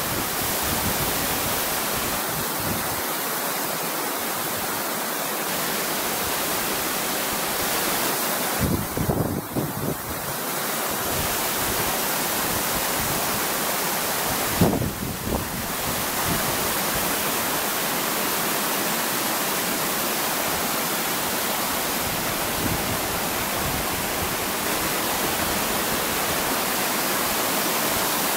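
Waterfall and the rocky stream below it rushing, a steady unbroken sound of falling and tumbling water. Two brief low rumbles break in about nine and fifteen seconds in.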